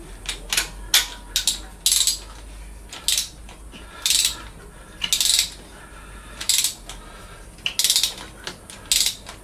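Hand ratchet wrench clicking in short strokes, a brief rattle of pawl clicks repeating irregularly about once a second.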